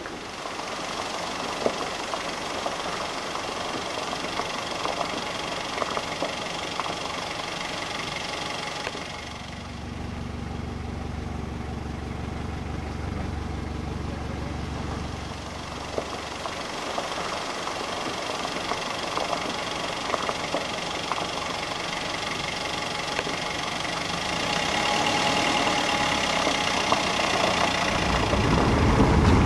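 Off-road vehicle driving over a gravel forest track, heard from inside the cabin: steady engine and road noise with scattered knocks and rattles. A deeper engine drone comes in for several seconds around the middle, and the noise grows louder near the end.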